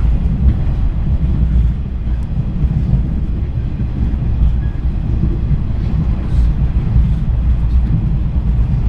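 Cabin running noise of a JR East 485 series electric train at speed: a steady low rumble of wheels on rail, heard from inside the passenger car.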